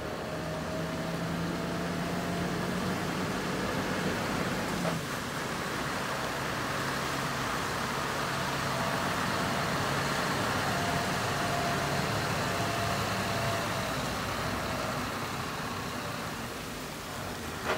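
Scania R620's 16-litre V8 diesel idling steadily with the truck standing still, over a steady hiss.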